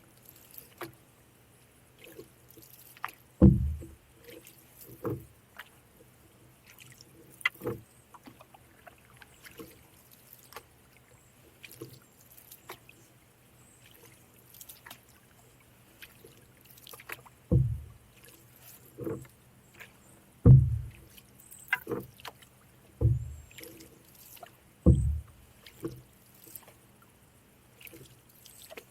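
A canoe being paddled: about eight irregular low thuds, with quiet water between them.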